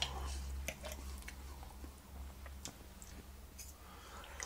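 A person chewing a mouthful of roast grouse, with a few faint clicks of cutlery against the plate.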